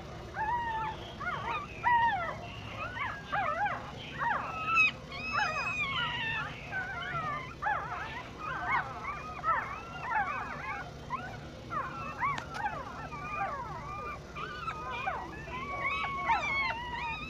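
A litter of newborn puppies squeaking and whimpering, many short high cries rising and falling in pitch and overlapping one another.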